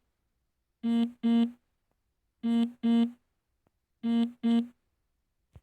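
Alarm app's electronic beep tone sounding in pairs: three double beeps about a second and a half apart, every beep short and at the same pitch. A single click near the end.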